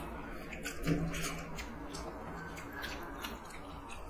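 Eating by hand: fingers mixing and squeezing rice with curry on steel plates, and chewing, heard as a string of small wet clicks and squelches.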